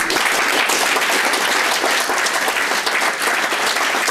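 Audience applauding: many people clapping at once, a dense, steady applause that holds at full strength throughout.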